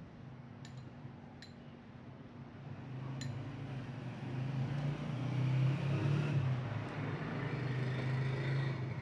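A motor vehicle's engine running, a low steady hum that grows louder about three seconds in and stays loud, with three light clicks before it swells.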